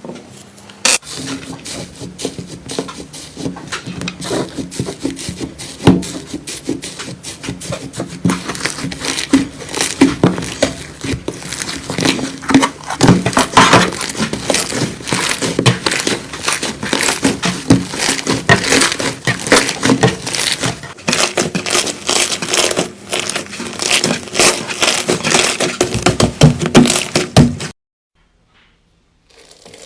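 Slime being squeezed and worked by hand, a dense run of crackling and popping clicks that cuts off suddenly near the end.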